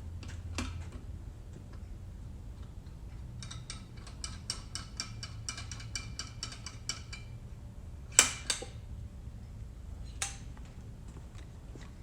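Metal hand tools and engine parts being handled on a workbench. A rapid run of light metallic clicks, about six a second for nearly four seconds, is followed by a sharp metal clank with a smaller one right after it, and another knock a couple of seconds later.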